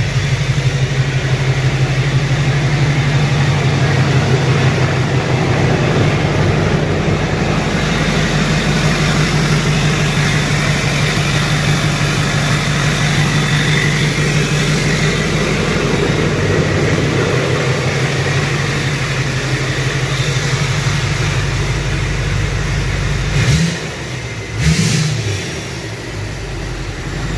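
Rebuilt Duramax 6.6-litre V8 turbodiesel idling steadily just after starting, with two short revs near the end before settling back to idle.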